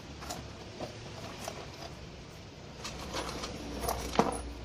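Hands picking through loose small metal engine parts in a cardboard box: scattered light clicks and clinks, busier near the end, with one sharper click about four seconds in.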